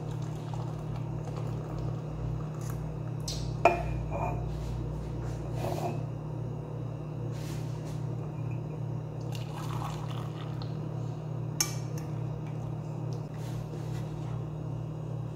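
Hot milk tea poured from a saucepan through a metal tea strainer into ceramic mugs, with scattered sharp clinks of the strainer and pan against the mugs, the loudest about four seconds in and another near the end. A steady low hum runs underneath.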